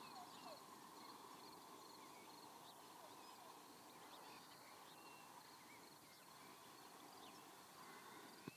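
Near silence: faint outdoor background with a few scattered faint bird chirps.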